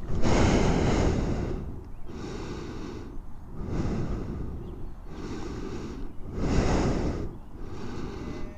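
Heavy breathing close to the microphone: about six slow breaths in and out, one every second and a half or so, the loudest near the start and about six and a half seconds in.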